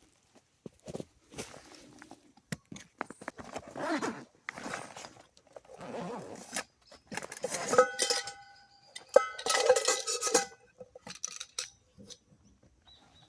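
Camp gear being handled: irregular rustling and knocking, with two sharp metal clanks in the second half that each ring on briefly.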